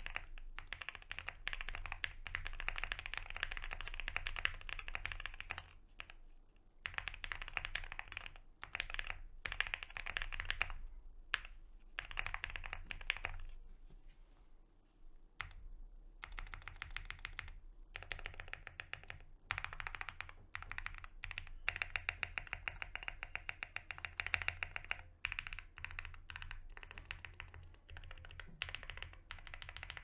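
QK65 custom mechanical keyboard with lubed, filmed Alpaca linear switches on a polycarbonate plate, typed on in fast runs of clacky keystrokes. After a short pause about halfway through, the modifier keys are pressed one at a time, including the larger keys on lubed Owlstabs stabilizers.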